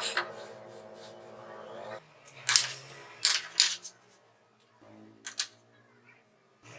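A steady hum for about two seconds, then a handful of sharp clicks and knocks, two pairs in quick succession, from parts and tools being handled on the workbench.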